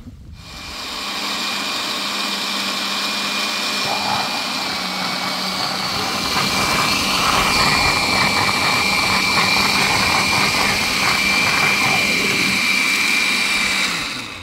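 Electric kitchen blender running steadily, blending pumpkin with coconut juice, with a constant hum and a high whine. It gets louder about halfway through, then the motor winds down with a falling pitch near the end.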